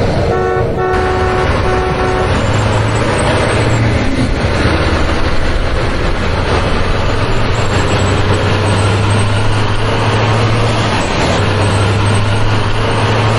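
Truck engine running with a steady low rumble. Over the first two seconds or so a horn toots in short repeated beeps.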